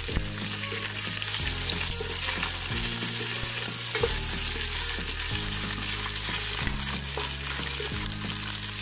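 Sliced onions, ginger paste and whole spices sizzling in hot oil in a pan. A wooden spatula stirs them with short scraping strokes.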